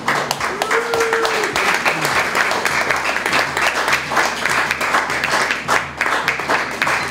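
People clapping and applauding continuously, with a short rising-and-falling call about a second in.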